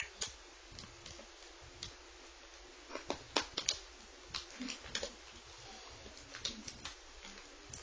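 Scattered small clicks and taps as a laptop display cable connector is handled and pressed into the port on a replacement LED screen panel.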